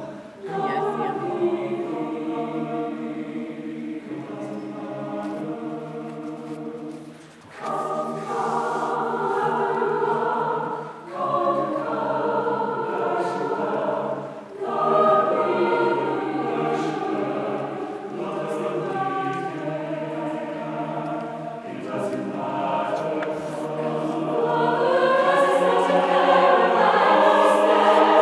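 Mixed choir singing held chords in long phrases, with short breaks between phrases and a swell to louder singing near the end.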